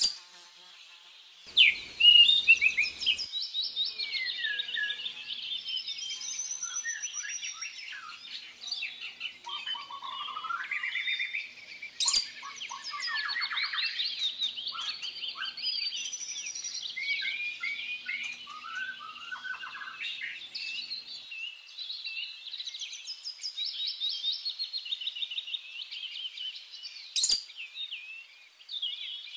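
Small birds chirping and twittering without a break, many quick high calls and sliding whistles overlapping. A burst of noise lasts about a second and a half near the start, and a sharp click comes about twelve seconds in and again about twenty-seven seconds in.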